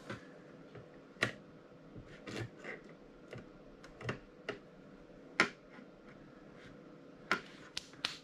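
Scattered sharp clicks and light taps, about a dozen at irregular intervals, from a hand tool and the wiring of a coffee grinder's motor being handled.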